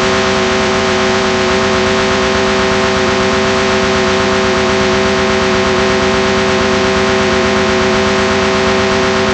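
Analogue television static, the hiss of a 'snow' screen with no signal: a loud, steady hiss with a steady hum of several low tones underneath.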